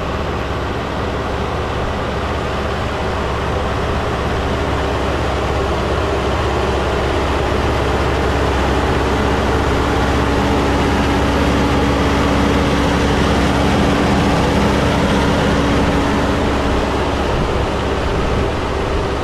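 John Deere 6403 tractor's diesel engine running steadily under load as it pulls a row cultivator through a bean field. It grows a little louder toward the middle as it passes close by.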